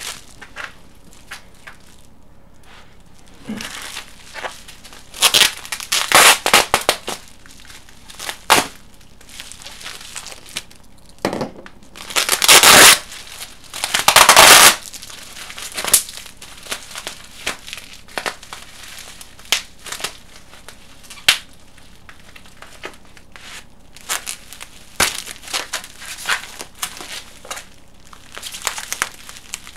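Packing material being handled and pulled apart during an unboxing: irregular crinkling and crunching, loudest in two longer bursts about halfway through.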